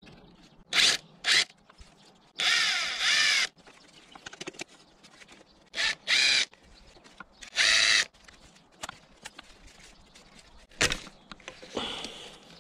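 Power drill-driver run in about eight short bursts, its motor whine rising and falling in pitch as the trigger is squeezed, with small clicks of tools and parts in between. This is typical of fasteners being run out during motorcycle chassis teardown.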